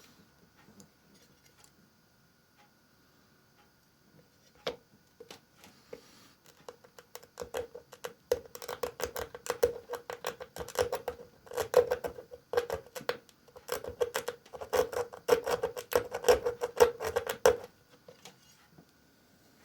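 A needle file scraped rapidly back and forth across glass in a hardness check, in several runs of quick strokes, with the glass ringing at a steady pitch. There is a single sharp tick about five seconds in, before the scraping starts.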